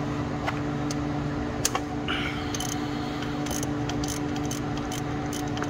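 A socket wrench clicks sharply every second or so against a steady low mechanical hum as it works the bolts on the A/C compressor lines.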